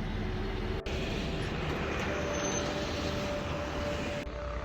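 Car driving on a road: steady engine and tyre noise, with a faint steady hum, briefly cutting out just under a second in.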